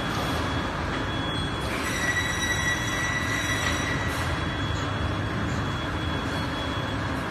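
Magnesium oxide board making machine running: a steady mechanical noise with thin high squealing tones over it, strongest from about two to four seconds in.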